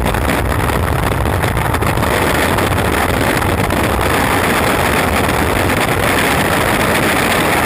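Longboard wheels rolling fast over rough, gravelly asphalt, a steady grinding rumble, mixed with wind buffeting the low-mounted action camera's microphone.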